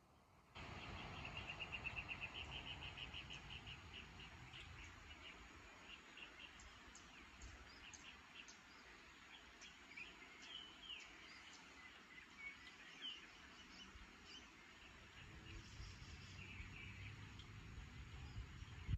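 Faint birdsong: a quick run of repeated high notes, about seven a second, near the start, then scattered short chirps and brief whistles. Under it runs a faint low rumble.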